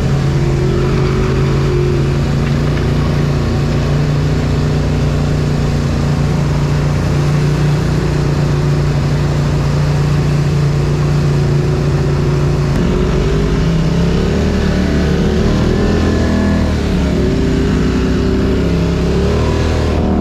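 Polaris ATV engine running while riding, heard close up from the handlebars. It holds a steady pitch at first, then from about two-thirds of the way through the pitch drops and rises and falls with changes of throttle.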